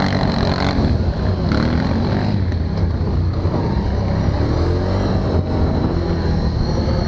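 Can-Am Outlander Max 1000 ATV's V-twin engine running under way, its pitch rising and falling with the throttle, with a thin steady high whine over it.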